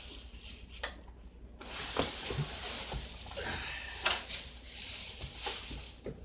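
Clear plastic bag wrapped around a miter saw crinkling and rustling as the saw is lifted out of its box, starting about a second and a half in, with a few sharp knocks.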